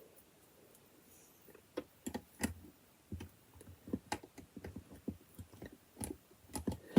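Small plastic LEGO pieces being handled and pressed together: irregular light clicks and taps, starting after a quiet second or so.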